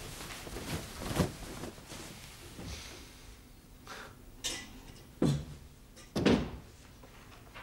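Louvred closet doors being opened and shut, with wooden knocks and clatters. The two loudest knocks come about five and six seconds in.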